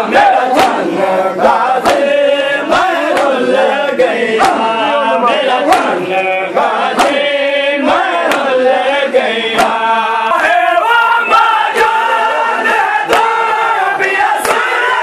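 A crowd of men chanting a Shia mourning lament (noha) together, over the sharp, regular slaps of open hands beating on chests (matam), about three slaps every two seconds.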